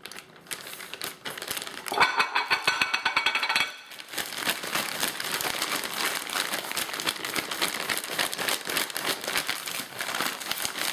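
A plastic Ziploc bag crinkling and rustling as chicken wings are shaken and tossed in seasoned flour inside it, with a louder rasping stretch about two seconds in, then steady rapid rustling.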